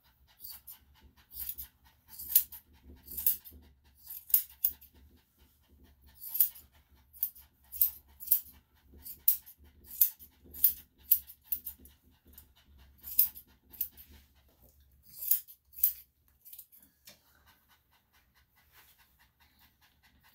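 Grooming scissors snipping through matted fur on a dog's head: short snips about once a second, some in quick pairs, thinning out near the end. A dog pants lightly underneath.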